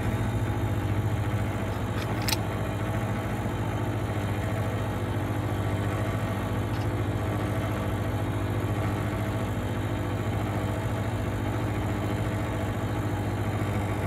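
Split air conditioner's outdoor compressor running with a steady hum. Its note has changed because the refrigerant has been pumped down and the service valves shut, so no gas is flowing out of it. A single short click about two seconds in.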